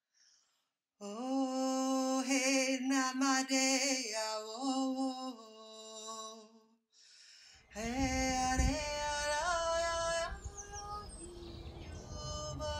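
Background music: a slow, chant-like sung melody moving in held notes. It breaks off for a moment a little past halfway, then resumes.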